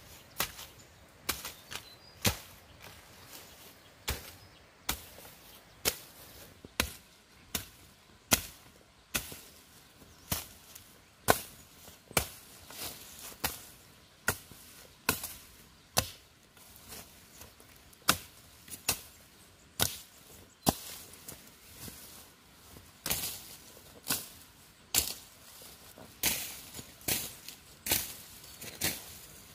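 Repeated strokes of a long-handled brush knife (machete) chopping through dry grass and undergrowth, one sharp chop about every second, sometimes two in quick succession.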